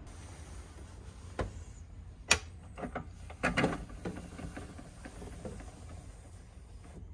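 Sharp plastic clicks and knocks as a capsule hotel pod's entrance panel and fittings are handled, the loudest about two seconds in and a quick cluster about a second later, over a low steady hum.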